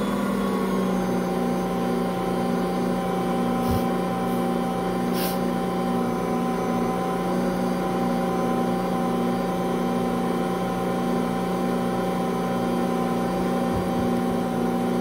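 Ankarsrum stand mixer running at a steady speed, its motor humming as the dough hook works a wet bread dough in the turning stainless steel bowl. Two faint clicks sound about four and five seconds in.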